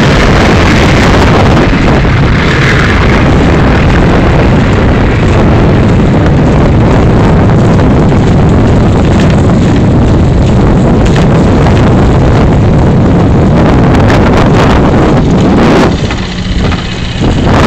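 Wind buffeting the microphone over a boat's motor running, filmed from a moving boat on open water. The noise is loud and steady, easing briefly near the end.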